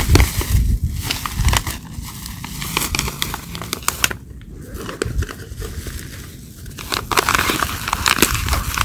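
Crinkling and rustling of something being handled, with many quick irregular clicks; louder at the start and again near the end.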